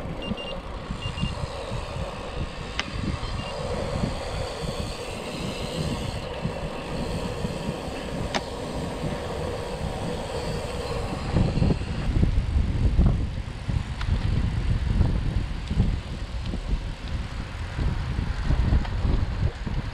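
Wind rushing and buffeting over the microphone, with road and tyre noise from moving along with the riders on their gravel bikes. It gets louder and gustier from about halfway through.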